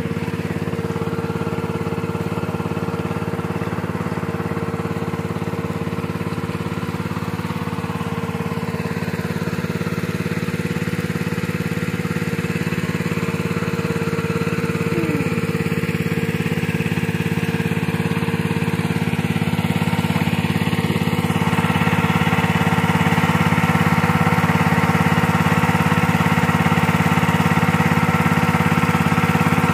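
Small petrol engine of a HINOTA portable water pump running steadily while it pumps water. It gets a little louder about two-thirds of the way through, then holds steady.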